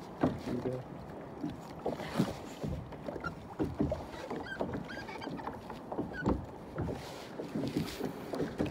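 Irregular knocks and bumps on a plastic sit-on-top kayak as the angler shifts about and handles his catch and gear.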